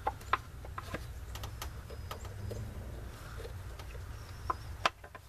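Scattered light clicks and knocks of hands working a plastic-sheathed wiring harness and its clips back into place around the engine's timing cover, with a sharper click or two near the end, over a low steady rumble.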